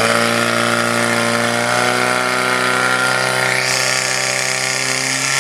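Portable fire pump's engine running at high, steady revs, pushing water out through the attack hoses during a firefighting-sport fire attack.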